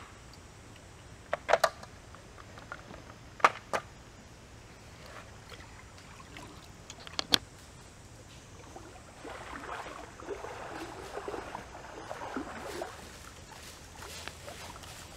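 Several sharp knocks of snail shells being handled against a rock, spread over the first half. Then, from about nine seconds in, a rustle of footsteps through dry leaf litter.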